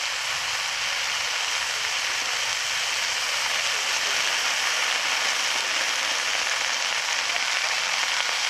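Leafy greens sizzling and crackling in a hot aluminium karahi, a steady hiss as they wilt in the heat.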